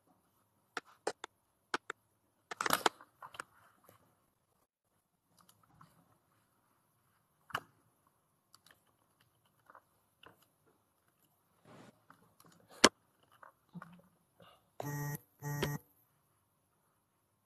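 Broken-up video-call audio: scattered sharp clicks and short crackly fragments, with a denser crackle about three seconds in. Near the end come two short buzzy beeps, about half a second apart.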